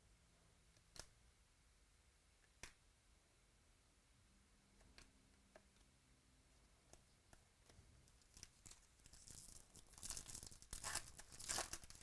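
A trading-card pack wrapper being torn open and crinkling, loudest over the last few seconds. Before it come a couple of faint clicks of cards being handled.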